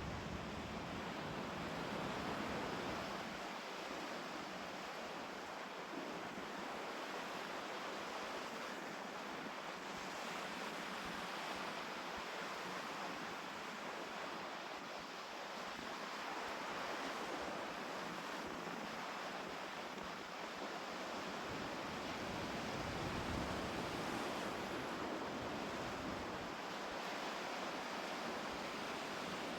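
Lake waves breaking and washing steadily on a beach in strong wind, with wind buffeting the microphone as a low rumble at the start and again for a few seconds past the two-thirds mark.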